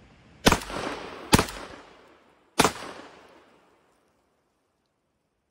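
Three shots from a Franchi Model 48 AL 28-gauge semi-automatic shotgun fired in quick succession, each trailing off in a short echo. The first two come close together and the third about a second later.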